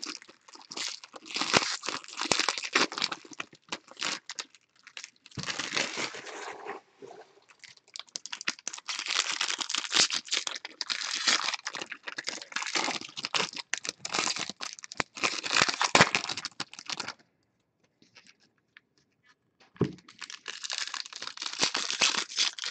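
Foil trading card pack wrappers being torn open and crinkled, in irregular spells of crackling and rustling. A short pause near the end is broken by a single dull knock.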